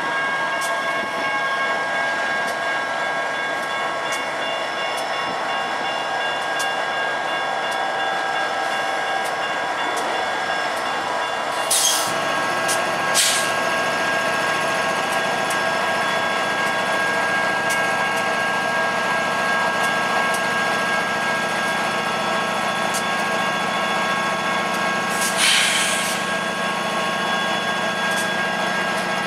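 Union Pacific GE diesel locomotives running steadily with a whine over their rumble, which deepens about twelve seconds in. Three short sharp bursts of hiss cut through at about twelve and thirteen seconds and again near the end.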